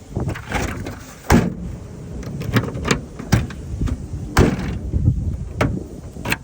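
A series of sharp knocks and clunks, about five over a few seconds, over a low rumble.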